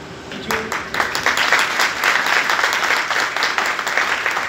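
A roomful of people applauding: scattered claps start about half a second in and quickly thicken into steady applause.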